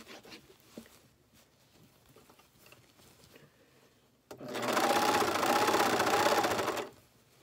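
Overlock sewing machine (serger) stitching and trimming a seam in one run of about two and a half seconds, starting a little past halfway and stopping abruptly; faint fabric handling before it.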